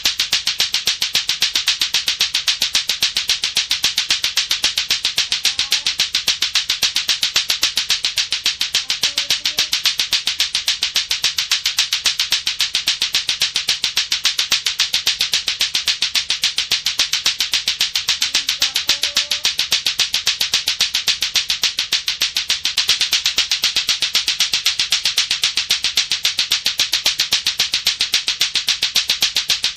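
Latto-latto clacker toy: two hard plastic balls on a string knocking together in a fast, very even rhythm, several clacks a second without a break.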